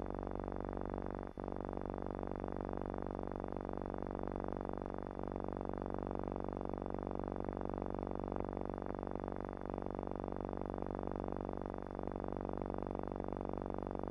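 Steady electrical buzzing hum with many overtones, the kind of hum that sits on the transfer of silent archival gun-camera film; it drops out for an instant about a second in.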